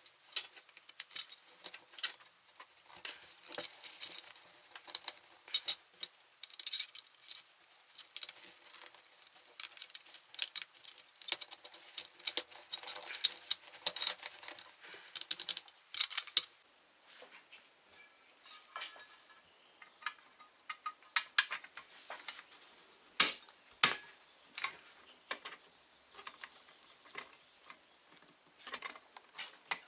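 Irregular clinks and taps of small metal parts being handled and fitted together while assembling a steel toy truck, busy for the first half and sparser after, with two louder knocks partway through the second half.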